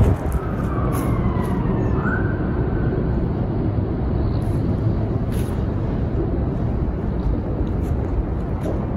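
Steady low vehicle rumble, with brief high squealing tones in the first two seconds, one falling and one short rising.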